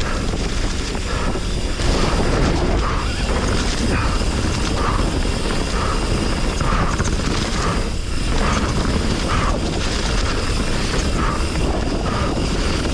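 Commencal Meta HT hardtail mountain bike descending a rough trail: wind rushing over the microphone, with the bike's chain and frame rattling in repeated short clatters over the bumps.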